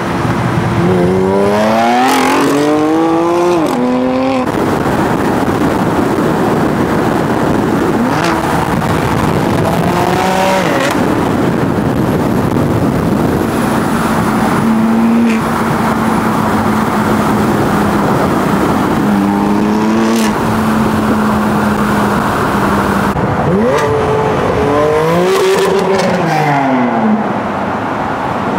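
Tuned BMW M4 Competition's twin-turbo straight-six, on upgraded turbos with a catless downpipe, pulling hard several times with the revs climbing and dropping at each gearchange, with steady cruising between the pulls.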